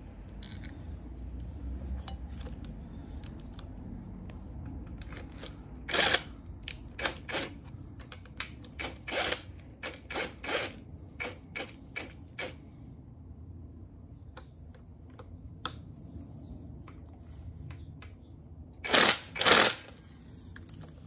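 Hand tools clicking and clanking against metal on the bolts of a Mazda MX-5 mk1 engine during reassembly: scattered sharp clicks from about six seconds in until about twelve, then two louder, longer bursts near the end.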